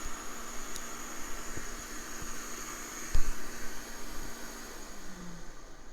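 Steady fan-like hiss with a high faint whine and a low hum, broken by a single low thump about three seconds in and a few faint ticks.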